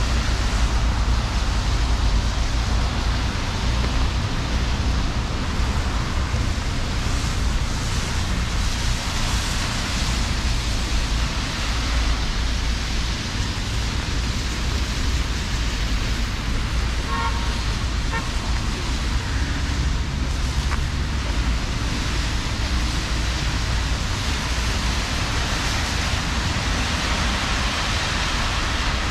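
Heavy rain falling together with the steady hiss of car traffic on wet city roads. A brief faint tone sounds about seventeen seconds in.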